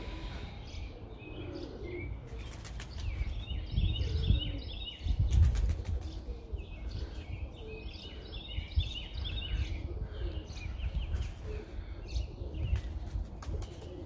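Birds flapping their wings and chirping in quick twittering runs, over a steady low rumble.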